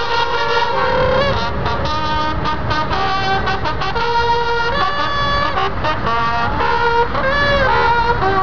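Engines of a column of military Humvees running past at parade pace, a dense low rumble. Above it, a run of held pitched notes steps up and down and sometimes glides.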